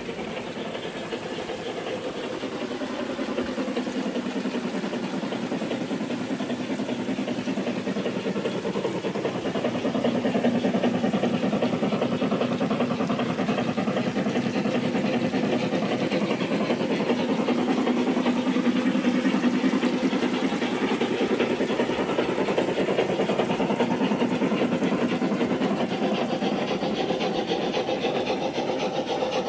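Märklin Gauge 1 model steam trains running on the metal track: a steady rolling rumble of wheels on rails, with steam hiss from a locomotive's sound unit. It gets louder from about ten seconds in.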